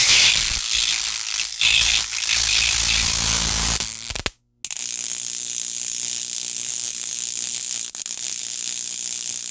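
Stun gun arcing: a loud, rapid crackling buzz of electric sparks, in two bursts about four and five seconds long, split by a short silence and cutting off suddenly at the end.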